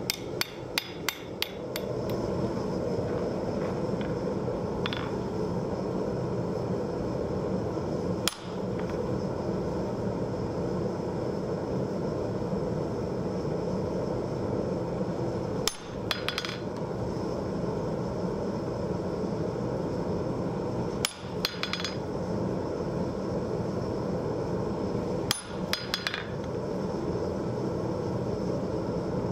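A hand hammer strikes hot steel on the anvil in a fast run of blows for the first second or so. Then the forge runs with a steady rush, broken by a few sharp metal clinks several seconds apart.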